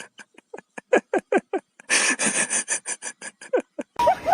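A small animal crunching a treat in quick, even strokes, about five to six a second, with a short pause near the middle.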